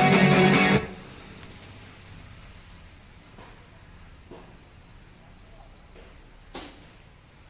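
Guitar background music that cuts off under a second in, then quiet outdoor ambience. A bird gives two quick runs of about six high chirps, and a sharp knock sounds near the end.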